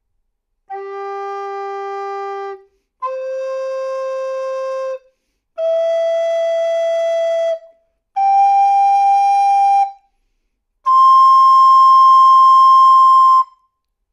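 Eagle recorder with the E3 head joint playing five long held notes, each about two seconds with short breaths between, climbing step by step like an arpeggio and getting a little louder as they rise.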